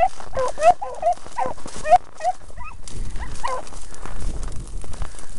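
Beagle hounds giving tongue on a rabbit's scent trail: a quick run of short, rising yelps, about three a second, thinning out after about two and a half seconds with one more yelp a second later.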